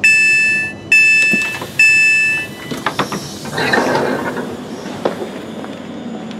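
Train passenger door opening: three loud two-tone beeps about a second apart, then the door slides open with a burst of noise and a few clunks.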